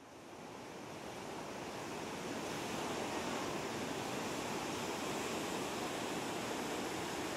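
Ocean surf breaking and washing up the shore: a steady rushing that fades in over the first couple of seconds.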